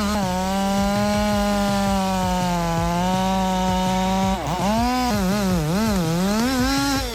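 Small two-stroke chainsaw engine running at high revs, holding a steady pitch for about four seconds. After that its pitch repeatedly dips and recovers, as the saw loads and unloads in a cut.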